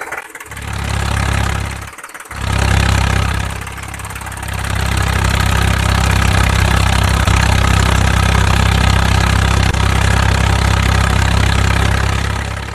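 Tractor engine running steadily with a low, even drone. It cuts out briefly twice in the first couple of seconds.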